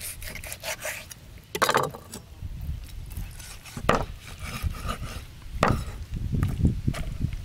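Large kitchen knife cutting through a pig's head on a wooden board: the blade rubs and scrapes through skin and bone, with three sharp knocks of the blade on the board about two seconds apart. A low sound comes in near the end.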